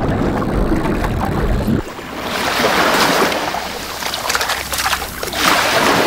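Water splashing and surging in shallow surf as a large animal charges through it, with wind on the microphone; the splashing swells twice, about half a second after it begins and again near the end. Before that, a low rumble that cuts off abruptly about two seconds in.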